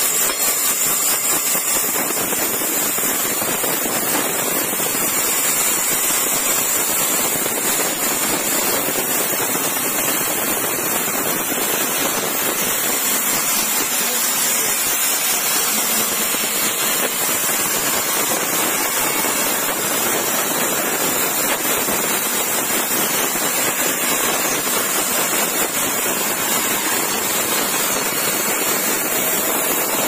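Vertical band saw ripping lengthwise through an old, weathered wooden beam: a steady, unbroken cutting noise of the blade in the wood, with a crackle from the teeth.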